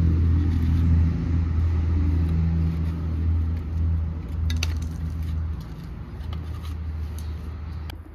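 An engine running with a steady low hum, starting suddenly and easing down a little after about five and a half seconds, with a few light clicks about four and a half seconds in.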